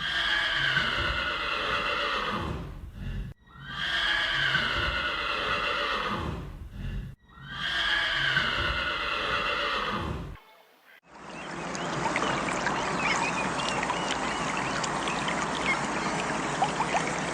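A horse whinnying three times, each whinny about three seconds long and nearly identical to the others. A steady hiss with faint high chirps follows about two-thirds of the way in.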